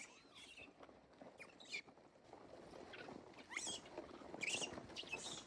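Rhesus macaques jostling over a box of biscuits: short high squeals several times, over a steady crackling rustle of scuffling and feeding.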